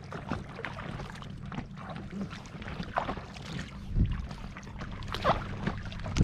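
Paddles of an inflatable kayak dipping and splashing in lake water in irregular strokes about a second apart, with water lapping at the vinyl hull over a steady low rumble.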